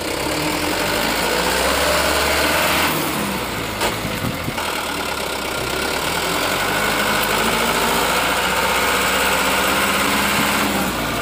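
Engine sound of a truck, running and revving with a rising pitch, dubbed over toy dump truck play. About four and a half seconds in it changes abruptly to a steadier run.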